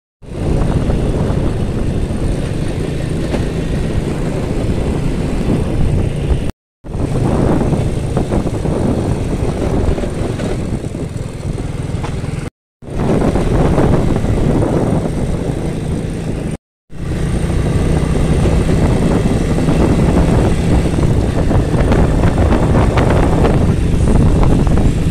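Motorcycle riding on a dirt road, heard from the saddle: the engine runs steadily under loud wind rushing over the microphone. The sound breaks off briefly three times.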